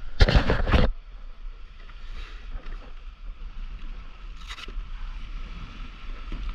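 Wind buffeting the microphone as a steady low rumble, with a loud burst of rustling noise in the first second and a brief one about four and a half seconds in.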